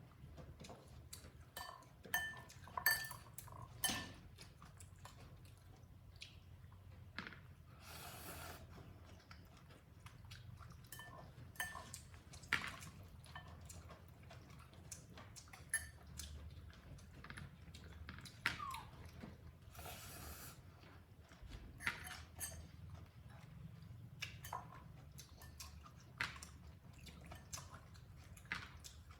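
Scattered clicks, knocks and light clinks of a plate being handled and set down, with two short rustling bursts and a brief falling squeak about eighteen seconds in.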